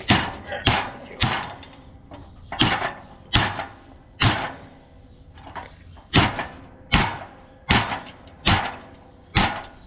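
About eleven hard hammer blows on steel, each with a short ringing tail, mostly less than a second apart with a pause midway: beating on a seized bolt of a cultivator's stabilizer disc to knock it free.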